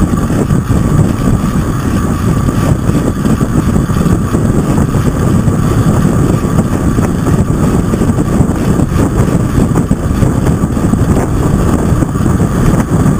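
Loud, steady rush of wind buffeting the microphone of a camera on a track bicycle riding at sprint speed, with a faint steady whine underneath.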